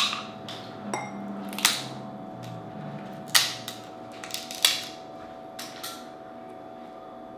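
Cooked Dungeness crab shell being broken and picked apart by hand: a series of short, sharp cracks and snaps, about seven over several seconds, the loudest about three and a half seconds in.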